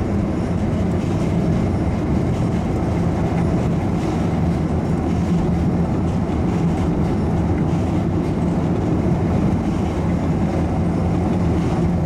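Airport shuttle train running along its tunnel guideway, heard from inside the car: a steady rumble with a low hum.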